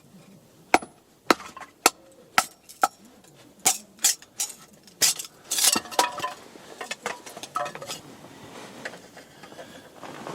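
Cookware and utensils being handled: a dozen or so sharp clinks and knocks at irregular intervals, some with a short ring.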